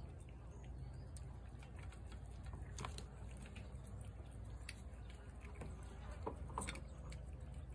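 Tabby cat eating wet food from a plate: scattered faint clicks of chewing and licking over a low steady rumble.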